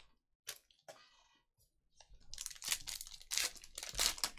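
Foil trading-card pack wrapper of a Panini Contenders football pack being crinkled and torn open by hand, loud and noisy, starting about two seconds in after a couple of soft taps.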